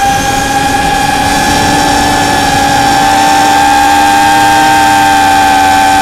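Electric motors and propellers of a radio-controlled aircraft in flight, heard from its onboard camera: a steady, multi-toned whine over rushing air noise, growing a little louder about halfway through.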